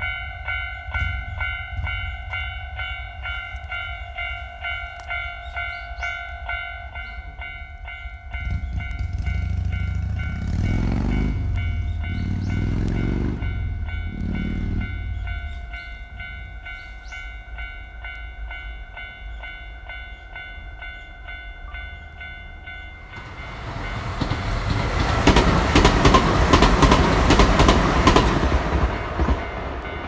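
Japanese level-crossing warning bell ringing in an even, repeating clang. A low rumble with shifting pitch comes midway, and near the end a train runs over the crossing with a loud rush and rail clatter.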